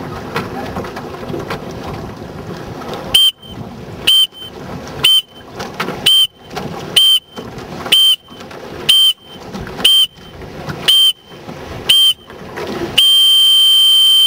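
Electronic sailing start timer counting down the last ten seconds: ten short, high beeps one a second, then one long continuous beep marking the start. Before the beeps, wind and water rush past the boat.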